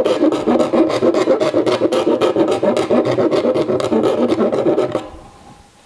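A spade drill bit cutting a half-inch hole through a plastic bucket lid: a loud, rasping scrape with a fast, even rhythm from the turning bit. It stops about five seconds in.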